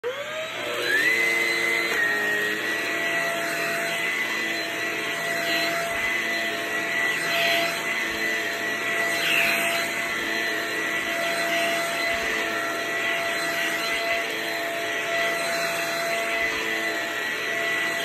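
Blue cordless stick vacuum motor spinning up with a rising whine in the first second or so, then running steadily with a high whine as its powered brush head is pushed back and forth over carpet.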